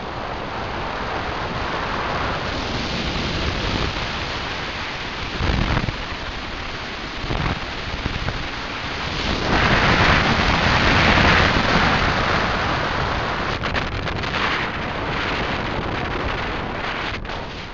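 Onboard sound of a rally car driven over a dirt and gravel circuit: a dense rushing of tyres, loose stones and wind on the camera microphone, swelling loudest around ten seconds in, with a few sharp ticks near the end.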